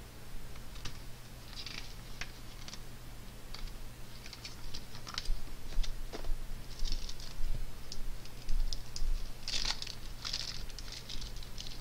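Packaging being handled: paper and a clear plastic bag rustling and crinkling, with scattered light clicks, loudest about ten seconds in, over a faint steady low hum.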